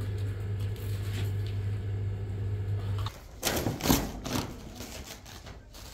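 A steady low hum with light handling sounds cuts off about three seconds in. A fabric tablecloth is then shaken out and flapped in a few strong swishes, loudest about four seconds in, followed by softer rustling.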